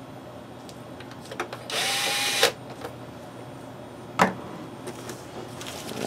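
Cordless drill/driver, set to its lowest torque setting, running briefly about two seconds in with a steady whine as it drives a small screw into the computer's plastic case. A sharp knock about four seconds in and a few light clicks come from handling the tool and the case.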